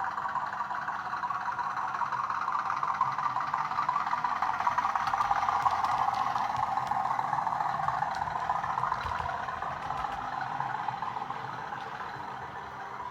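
Hornby Class 50 OO gauge model locomotive's Hornby TTS sound decoder playing a diesel engine sound through its small onboard speaker as the model runs past. It grows louder to a peak about halfway and then fades away.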